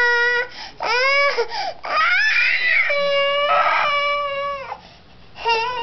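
A pet cat whining in long, drawn-out meows, about four or five in a row, each around a second long, bending in pitch.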